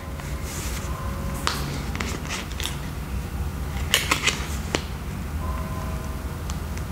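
Steady low room hum with scattered small clicks and taps, a cluster of them about four seconds in.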